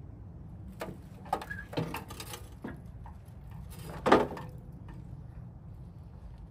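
A handful of knocks and clunks, the loudest about four seconds in, as a car's front subframe and nearby parts are shifted and handled during a test fit, over a steady low hum.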